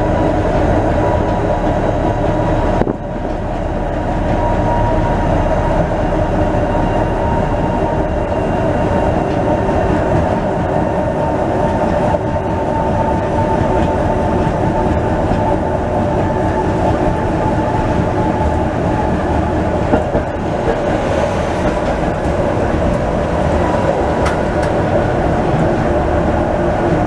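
Tatra T5C5 tram running along the track, heard from inside the driver's cab: steady rail running noise with a steady whine, and a brief drop in loudness about three seconds in.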